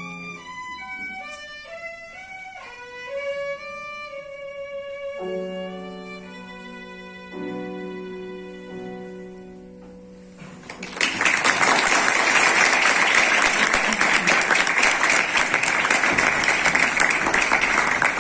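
Violin playing the closing phrases of a piece, ending on long held notes. About eleven seconds in the music stops and loud applause takes over.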